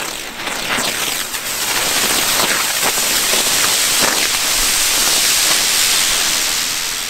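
Consumer ground firework burning: a loud, steady hiss of spraying sparks, thick with dense crackling, building up over the first two seconds.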